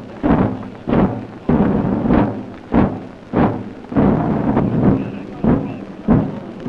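Drums beating a slow, steady funeral-like rhythm, a little under two beats a second, each deep beat ringing out briefly.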